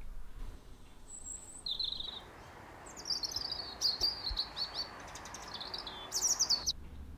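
Small birds chirping in many short, high calls over a steady outdoor hiss. The chirping and the hiss cut off suddenly near the end.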